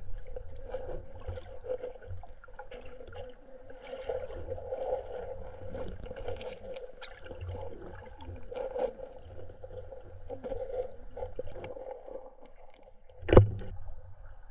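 Muffled underwater sound of a shallow rocky stream, heard through a submerged camera: a steady low rush of moving water with scattered small ticks and crackles, and one sharp knock near the end.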